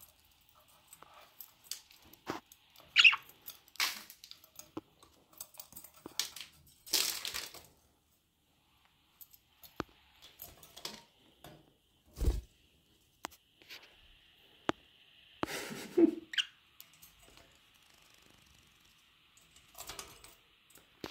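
Budgerigar making short squeaky chirps, mixed with the clicks and rustles of the bird moving against the cage and phone; one dull knock comes about twelve seconds in.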